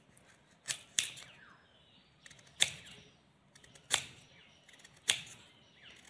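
Kitchen knife slicing through a raw carrot. Each cut ends in a sharp tap of the blade on the cutting surface: five taps, roughly a second apart.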